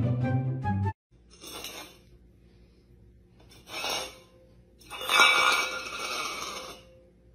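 Music for about a second, then it cuts off. A stainless steel bowl clatters and scrapes on a tile floor as a cat paws at it: two short bursts, then a longer scrape with some metallic ringing lasting about two seconds.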